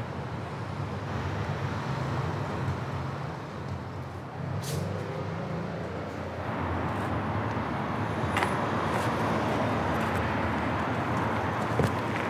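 Steady city street traffic noise, with a few short sharp clicks along the way.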